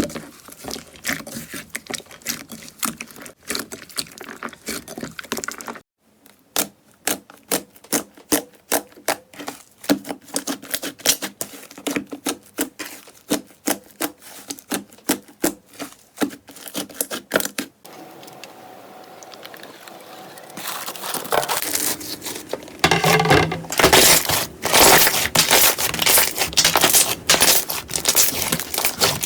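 Slime being squished and pressed by hand, giving rapid sticky clicks and crackling pops. It breaks off abruptly twice, then grows louder and denser near the end.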